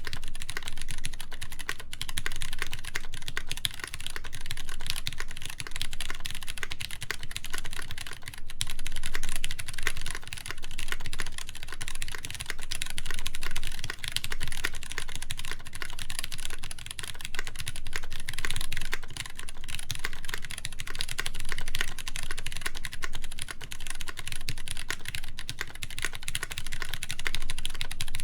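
Continuous fast typing on a Duck Jetfire mechanical keyboard: lubed Cherry MX Brown tactile switches on a full polycarbonate plate, with GMK keycaps, clacking in a dense, steady stream of keystrokes.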